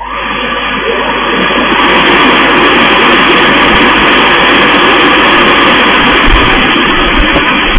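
Loud background music led by electric guitar, starting abruptly.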